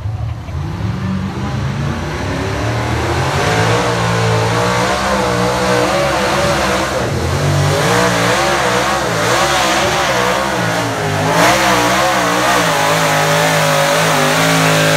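Pickup truck engine at full throttle pulling a weight-transfer sled in a truck pull, building up over the first couple of seconds, then loud and sustained with the engine pitch wavering up and down as it labours under the load.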